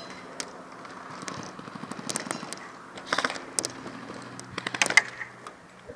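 Airsoft guns firing in short rapid bursts of sharp snaps: a few about two seconds in, a burst around three seconds, and the loudest, densest burst just before the five-second mark.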